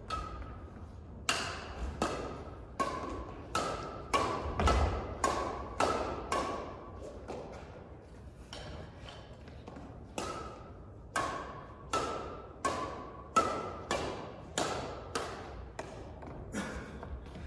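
Badminton rackets striking a shuttlecock back and forth in a quick rally, each hit a sharp ping with a short echo from the hall. Play pauses for about three seconds midway, then the hits resume.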